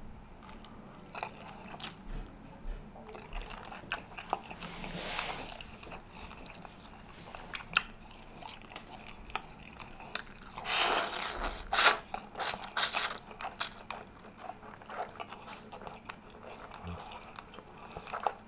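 Close-miked eating: chewing noodles with many small mouth clicks, and a few loud noisy slurps about eleven to thirteen seconds in.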